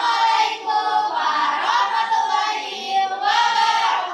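Several voices singing together, holding long notes that glide slowly from one pitch to the next.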